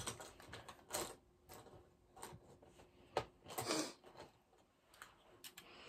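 Scattered light clicks and taps with brief rustling: makeup products, cases and brushes being picked up, opened and set down.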